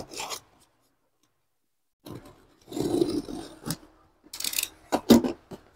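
Box cutter slicing and scraping through thick plastic bubble wrap in irregular rasping strokes. It starts about two seconds in, with the loudest strokes near the end.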